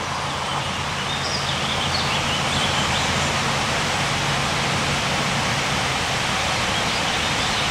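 Steady outdoor background noise: an even rushing hiss with a faint low hum beneath it and a few faint high chirps about one to three seconds in.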